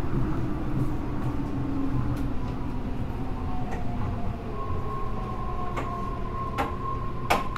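Tokyo Monorail 10000 series IGBT-VVVF inverter and traction motors whining under a steady low rumble, the tones falling in pitch as the train slows. A little past halfway a steady high tone sets in. Three sharp clicks follow in the last few seconds, the loudest near the end.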